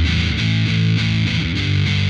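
Electric guitar riff through a Guyatone TZ-2 fuzz pedal with its depth knob set low, played on a Stratocaster's Seymour Duncan JB Jr bridge pickup into a Laney VC30 valve amp. The fuzz tone is angry at the top end and quite bassy, and the notes change every half second or so.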